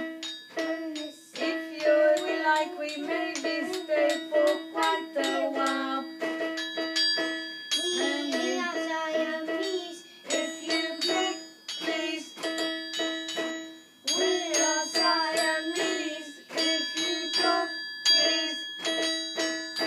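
Homemade music: a toy electronic keyboard playing a simple melody while a metal triangle is struck again and again, its high ringing tones hanging over the notes.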